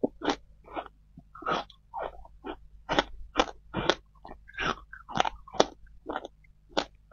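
Packed shaved ice being chewed, a quick irregular series of crisp crunches, about two to three a second.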